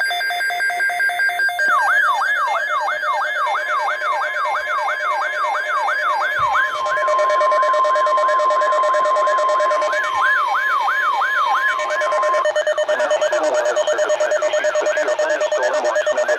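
Weather alert radio alarms sounding for a severe thunderstorm watch: a siren-like warble sweeping up and down about three times a second. A steady alert tone joins it for about six seconds in the middle, with other steady alarm tones beneath.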